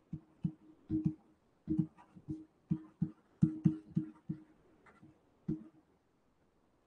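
Stylus tapping on a pen tablet during handwriting: a quick, irregular series of short knocks with a low thud, two or three a second, stopping near the end.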